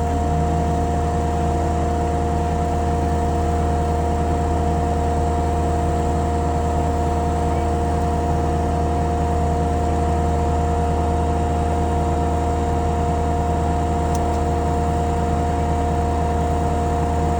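An engine running steadily at a constant speed, a deep low hum with a few steady whining tones above it and no change in pace.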